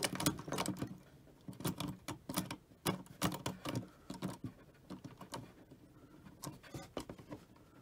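The self-centering coupler assembly on a Lionel 628 switcher's power truck is worked back and forth by hand, freshly oiled. It gives a run of small, irregular clicks and rattles, which thin out after about four seconds.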